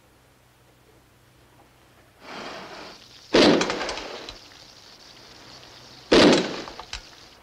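Capped bottles of home-brewed beer bursting from fermentation pressure: a hiss comes in about two seconds in, then two loud bangs about three seconds apart, each trailing off in crackling and breaking glass.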